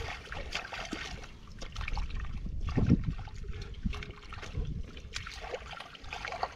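Hands groping and splashing through shallow muddy water while feeling for fish, with irregular sloshes and trickles and a louder slosh about three seconds in.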